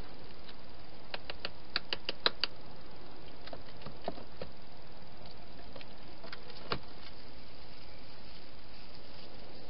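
Hedgehog feeding inside a plastic feeding box: a quick run of sharp crunches and clicks about two seconds in, then a few single clicks, over a steady hiss.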